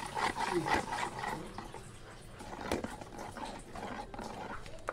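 A spoon stirring thick gochujang marinade in a plastic tub, with wet squelching from the sticky paste and a few light clicks of the spoon.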